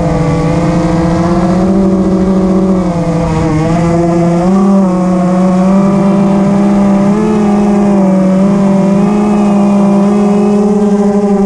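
FPV quadcopter's brushless motors and propellers whining loudly, the pitch stepping and wavering up and down as the throttle changes.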